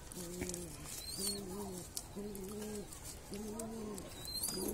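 Domestic pigeons cooing: a run of low coos, about one a second. Two brief high chirps are heard, one a little past a second in and one near the end.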